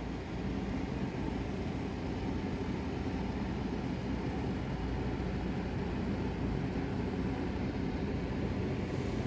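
A 6,000 BTU General Electric window air conditioner running steadily with its compressor not yet started.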